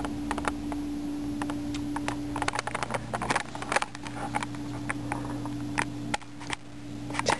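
Scattered small clicks and rustles over a steady low hum, which drops out briefly twice.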